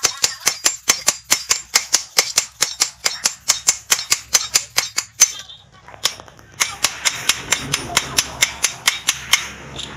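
Hammer blows on red-hot leaf-spring steel lying on a steel post anvil: a fast, even run of sharp strikes at about four a second, a pause of about a second just past the middle, then a second run of strikes.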